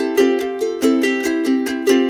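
Background music on a plucked string instrument: quick picked notes, about five a second.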